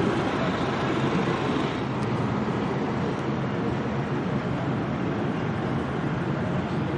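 Steady rumble of road traffic passing overhead on a highway bridge.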